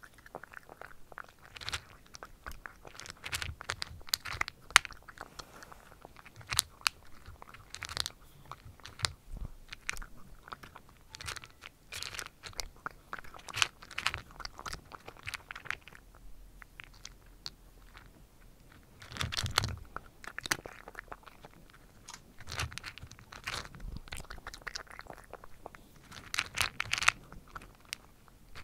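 A domestic cat chewing dry kibble right at the microphone: irregular crisp crunches, with a short pause a little past halfway and a busier run of crunching near the end.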